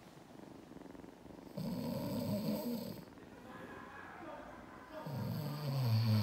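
A man snoring: one snore about a second and a half in, then a louder one building near the end.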